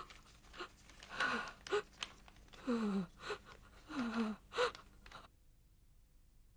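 An old woman sobbing: a string of short, gasping cries, each falling in pitch, which stop about a second before the end.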